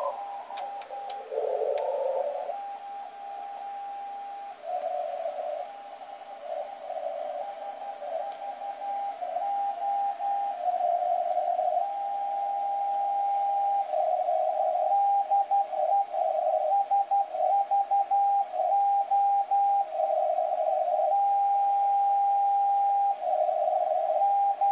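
Morse code from the SVO Olympia Radio coast station, received in CW mode on a Kenwood TS-590S at 8424 kHz. A single keyed tone sends dots and dashes with several long unbroken tones between groups, over narrow-filtered band hiss.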